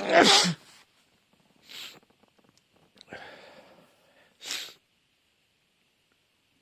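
A sneezing fit: one loud sneeze right at the start, followed by three weaker bursts of sneezing and snorting breath over the next five seconds.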